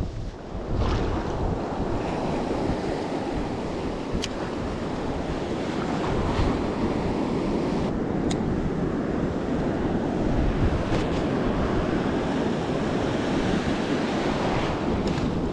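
Waves breaking and washing in the surf, with wind buffeting the microphone.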